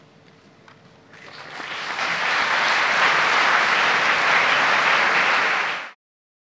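Large audience applauding, the clapping swelling from about a second in to a full, steady sound, then cutting off suddenly near the end.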